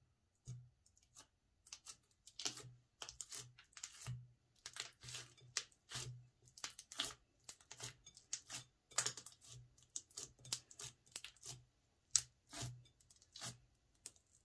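Foamy, air-filled slime crackling and popping as fingers poke it and a palm presses down into it: irregular, sharp little crackles, several a second.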